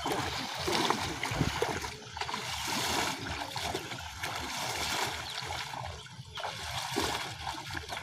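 Feet wading through shin-deep water, splashing and sloshing irregularly with each stride.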